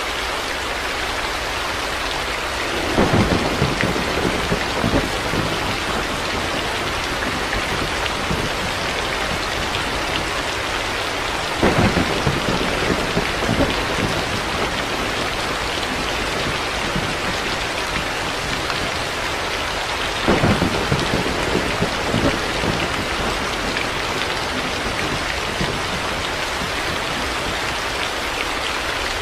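Heavy rain falling steadily, with three short rolls of thunder crackling through it, about 3, 11 and 20 seconds in.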